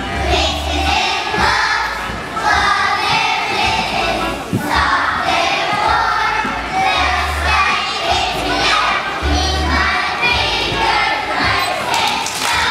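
A kindergarten class singing together as a children's choir in a large gymnasium, over an instrumental accompaniment with low bass notes held every few seconds.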